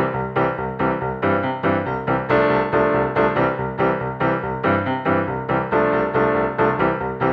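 Music played on a piano-like keyboard, with notes struck in a quick, steady rhythm.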